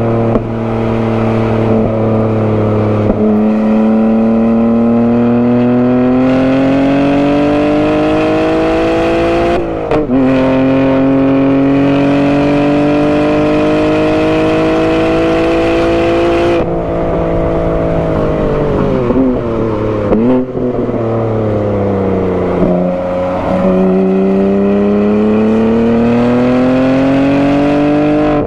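BMW G80 M3's twin-turbo inline-six, with a non-resonated midpipe, pulling hard on track. The revs climb, drop sharply on an upshift about ten seconds in, and climb again. Then they fall away under braking, with short blips on the downshifts, and pull up once more near the end.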